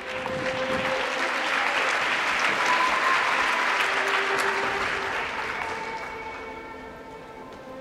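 Audience applauding, swelling over the first second or two and dying away near the end, over music that plays on underneath.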